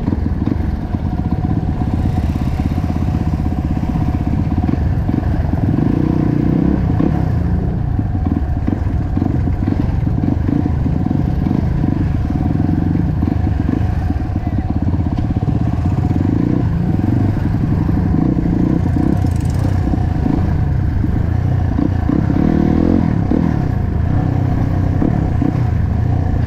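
Trail/supermoto motorcycle with a newly fitted aftermarket exhaust running at low revs while riding slowly in traffic, the throttle opened briefly a few times.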